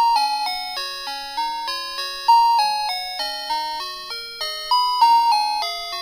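Electronic bell-like melody of single notes, about three a second, each struck sharply and fading, stepping up and down in a simple tune.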